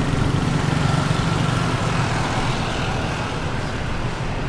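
Steady road and traffic noise from a moving vehicle, with a low engine rumble that is strongest in the first two seconds and then eases.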